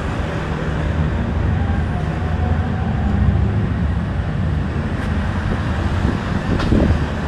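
Steady low rumble of city street noise heard while walking along a busy street at night.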